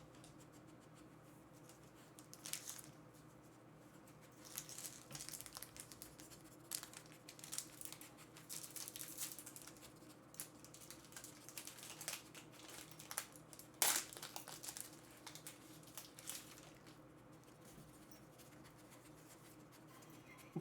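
Foil trading-card booster pack wrappers crinkling and tearing as they are torn open, in irregular bursts from about two seconds in until near the end, with one sharp loudest rip a little past the middle.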